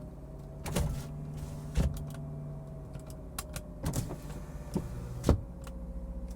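Power window of a 2013 Subaru Outback being tested with a newly installed driver's window switch. There is a steady hum throughout, with a series of sharp switch clicks.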